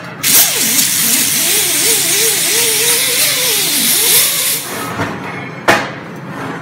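Air-powered sander with a small disc running against steel plate to clean off weld spatter, a loud hiss with its pitch wavering up and down. It stops about four and a half seconds in, followed by a couple of sharp knocks.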